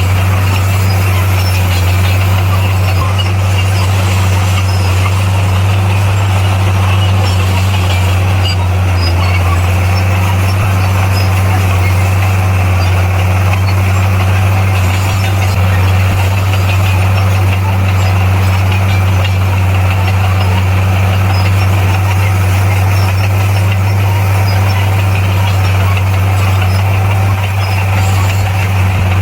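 Bulldozer's diesel engine running steadily under load, a constant deep hum.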